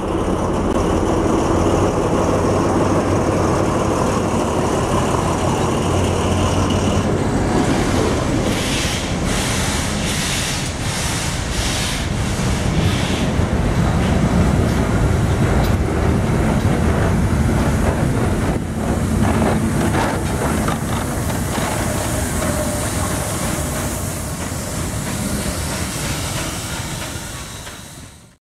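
Railway cars rolling past at close range, with a steady rumble and their wheels clattering over rail joints in a quick run of clacks partway through. The sound cuts off suddenly near the end.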